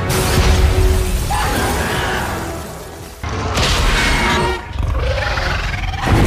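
Mothman monster sound effect: loud, harsh, noisy cries with wavering pitched strands. Each starts suddenly and fades over about three seconds, with a new one starting about three seconds in and another near the end.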